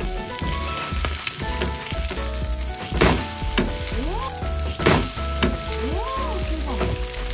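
Seafood green-onion pancake sizzling in hot oil in a nonstick frying pan, flipped and pressed with a slotted spatula: two sharp slaps about three and five seconds in are the loudest sounds.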